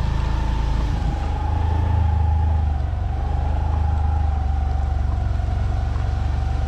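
Motor vehicle engine running at a steady cruising speed on the road: a continuous low drone with a faint, thin whine above it that sags slightly in pitch.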